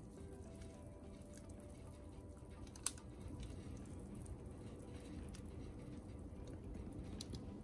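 Faint handling noises of kitchen work: light scattered taps and clicks, with one sharp click about three seconds in, over a low room hum.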